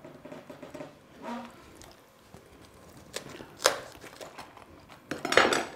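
Knife cutting through the stem ends of savoy cabbage leaves on a plastic cutting board, and leaves being pulled off the head: a few sharp cracks and crunches, the loudest a cluster of crackling near the end.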